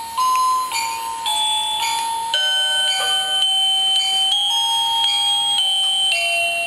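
A simple electronic tune of pure, chime-like notes, each held about half a second to a second before stepping to the next pitch.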